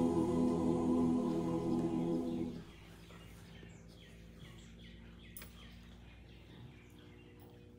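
A choir holds the final chord of a hymn, which cuts off sharply about two and a half seconds in. Faint bird chirps follow.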